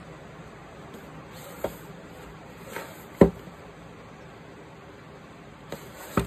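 Pink cardboard lightstick box being picked up, turned over and set against a table: several short knocks and taps, the loudest a little over three seconds in, and two more close together near the end.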